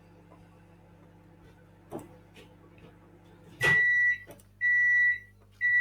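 Electronic alert beeps from online poker software: a steady high-pitched tone, each beep about two-thirds of a second long, repeating about once a second from just past the middle, after a single click. The beeping signals that it is the player's turn to act and time is running down.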